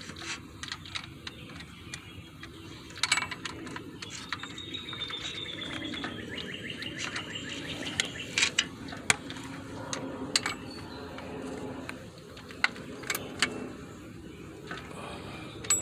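Scattered clicks and knocks of hand tools, with ratchet clicking, as the freshly installed water pump's bolts on a 6.0 diesel are snugged down and checked for tightness.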